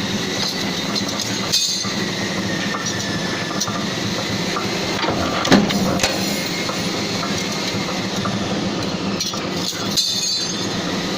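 TDF duct corner punching machine running steadily, with metallic clinking of the steel corner pieces and three sharp knocks, the loudest about five and a half seconds in.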